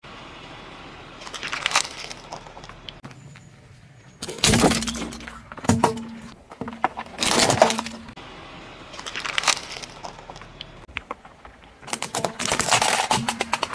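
Car tyre rolling over small objects on asphalt and crushing them, including a foam tray of water beads and plastic toy track pieces. The sound comes as about six separate bursts of crackling and snapping, with the longest near the end.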